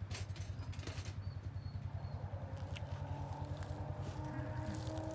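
A low, steady throb runs under everything; a few sharp metal clicks come in the first second as the wire cage trap is handled, and a faint, drawn-out animal call sounds in the second half.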